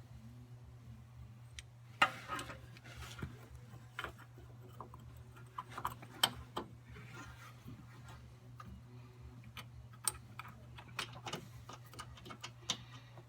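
Irregular metallic clicks, taps and short scrapes of a wrench and small metal parts being handled while a snowblower carburetor is put back together, with the sharpest clicks about two and six seconds in, over a steady low hum.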